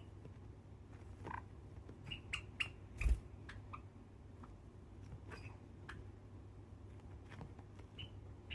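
Java sparrows giving short, soft chirps now and then, amid scattered small clicks and taps; a louder knock comes about three seconds in.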